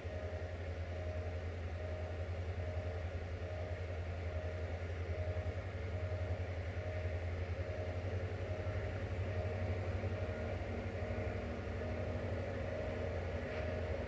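Level-crossing warning signal sounding a single repeated tone at an even beat, a little over once a second, over a low steady diesel engine rumble from an approaching train.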